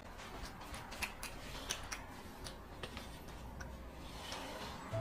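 Faint, scattered light clicks and taps: chopsticks and paper noodle cups being handled on a table.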